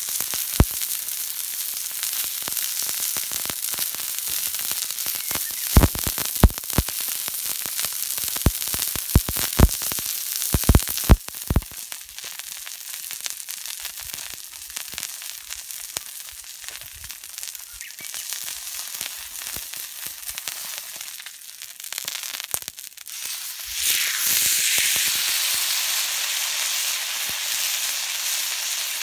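Steak sizzling on a thick iron griddle plate over a wood fire, a steady high hiss with several sharp clicks in the first twelve seconds. The sizzle grows suddenly louder about 24 seconds in.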